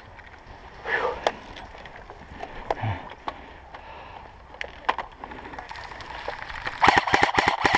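Airsoft electric rifle firing a rapid burst of about ten shots in the last second, with scattered sharp clicks and a distant shout earlier.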